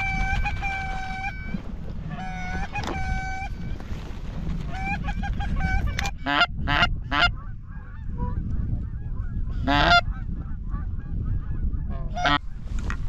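Geese honking as a flock comes in: several long, level honks in the first few seconds, then shorter, sharper calls about six, ten and twelve seconds in, over a steady low rumble of wind.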